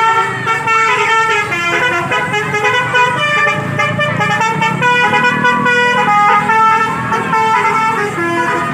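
Telolet Basuri musical bus horn playing a quick tune, its horn tones stepping from note to note without a break.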